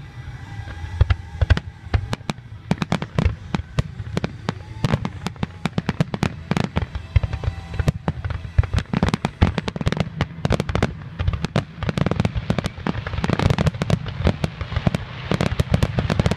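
Fireworks display: a rapid, dense barrage of aerial shells bursting and crackling, with the bangs coming thicker and louder toward the end.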